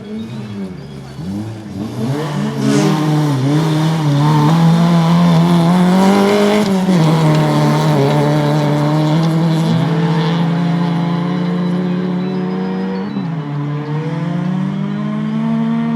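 Fiat Cinquecento rally car engine revving hard. The pitch swings up and down quickly for the first couple of seconds, then stays high, dipping briefly a few times and climbing again near the end.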